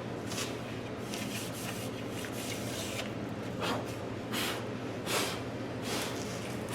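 A handful of short scuffing and rubbing sounds, about six in the span, over a steady low hum.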